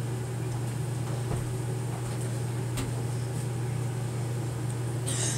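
A steady low hum from a running appliance, with a few faint clicks.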